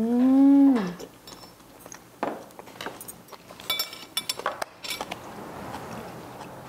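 A person's short, loud "mmm" of relish while eating, its pitch rising then falling, lasting about a second. Then scattered light clinks of cutlery against dishes.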